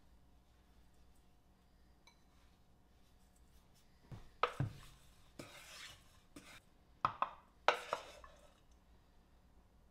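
Wooden spoon stirring cooked penne in a stainless steel mixing bowl: quiet at first, then a run of knocks and short scrapes of the spoon against the metal bowl over about four seconds, the two loudest knocks near the end.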